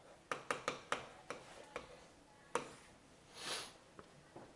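Pen stylus tapping and scratching on a tablet's writing surface during handwriting: about seven sharp ticks over the first two and a half seconds, then a short scratchy stroke about three and a half seconds in.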